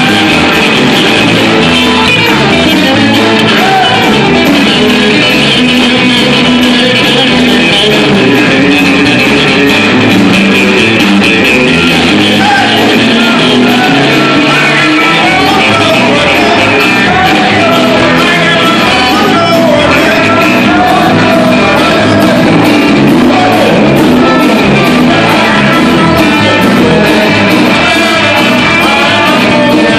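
Live blues band playing loudly, with electric guitar, electric bass and a drum kit, and a singer at the microphone.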